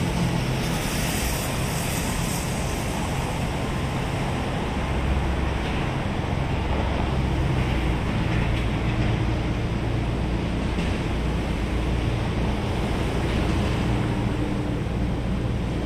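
Steady outdoor ambient noise: a continuous low rumble under a wide, even hiss, with no distinct events.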